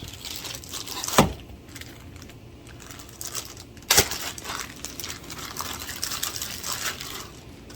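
Cooking sounds at a griddle with hot oil: a crackly liquid hiss with small clicks, broken by two sharp knocks, about a second in and about four seconds in.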